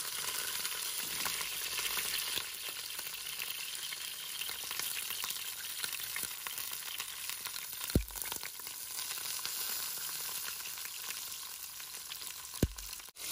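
Zucchini sizzling steadily as they brown and seal in hot olive oil in a pressure-cooker pot, with two dull bumps, about eight seconds in and near the end.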